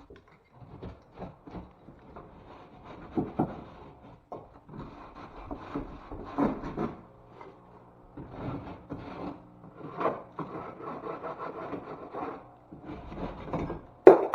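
Hand tool scraping and rubbing against drywall in irregular strokes, with a sharp knock just before the end.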